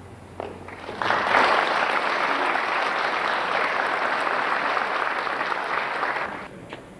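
Audience applauding, starting suddenly about a second in and stopping after about five seconds.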